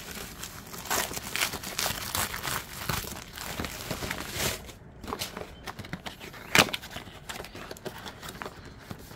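Knife packaging being opened by hand: irregular crinkling and rustling with many small clicks, and one sharp snap about two-thirds of the way through.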